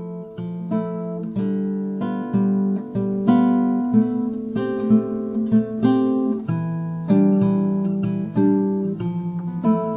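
Background music: acoustic guitar playing plucked notes and chords, each note ringing out and fading.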